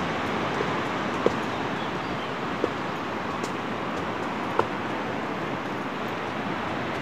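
Steady rushing outdoor noise of wind and distant surf, with three short faint chirps.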